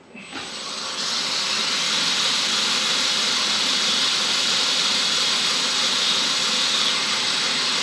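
A pencil being sharpened on a spinning bench-top abrasive wheel. The machine comes up to speed and runs with a steady, loud hiss of grinding, which reaches full strength about a second in.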